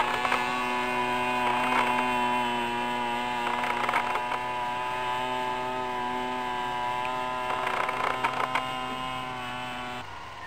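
Titan ZG20 20 cc two-stroke petrol engine of a large model Piper J3 Cub in flight, running at a steady speed and pitch. It slowly fades as the plane flies away.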